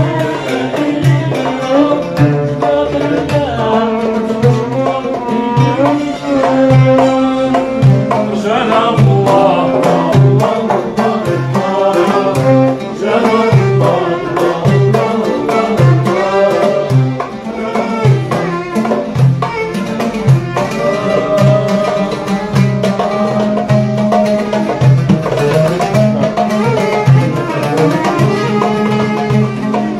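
Live traditional Arabic music: an oud plays a melody over a steady beat on a hand drum.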